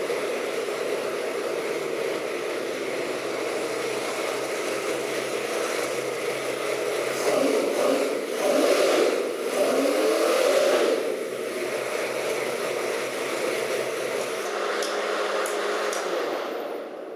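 Ford 351 Windsor V8 crate engine, a roller motor with an Edelbrock carburetor, running on an engine test stand. It idles steadily, is revved up and down by hand at the carburetor about halfway through, settles back to idle, and falls away near the end.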